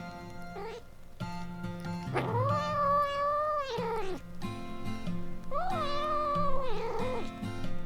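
A kitten meowing twice in long, drawn-out calls, over background music. The first call lasts about two seconds and holds one pitch; the second, near the end, starts higher and falls away.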